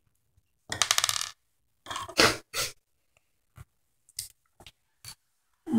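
Small plastic Lego minifigure parts clicking and rattling in fingers held close to the microphone: a rattling burst about a second in, two sharper scrapes a little after two seconds, then a few scattered soft clicks.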